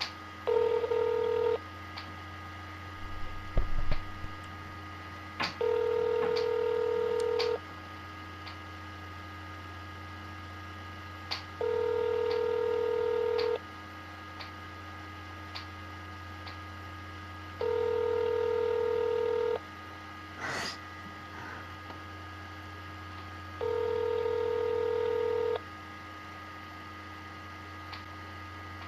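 Telephone ringback tone heard by the caller on an outgoing call: a two-second ring every six seconds, five times, over a low steady hum on the line. The cadence is the North American one, and it means the called phone is ringing unanswered.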